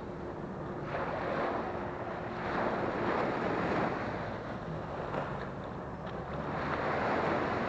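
Small waves breaking and washing up a sandy beach, the surf swelling three times, with wind buffeting the microphone.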